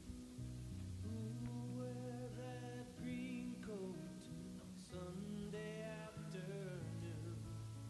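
Background music led by acoustic guitar, with sustained pitched notes that glide in places.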